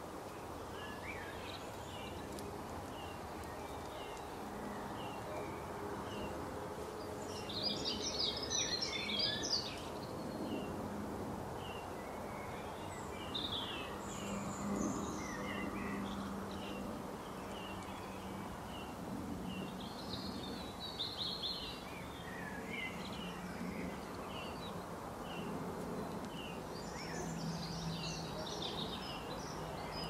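Wild birds chirping and singing: a steady scatter of short chirps, with several brief bursts of busier song, over steady outdoor background noise.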